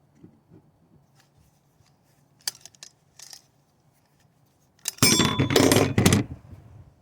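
Copper refrigerant tubing being cut on a work table: a few faint ticks and clicks, then about five seconds in a loud burst of metallic clinking and rattling lasting just over a second.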